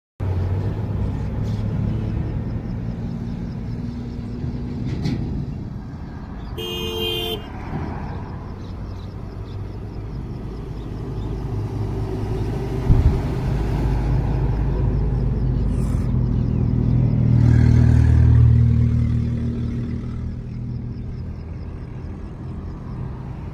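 Highway traffic going by close at hand, a steady rumble of engines and tyres. A vehicle horn honks briefly about a quarter of the way through, and a louder vehicle passes about three-quarters of the way through.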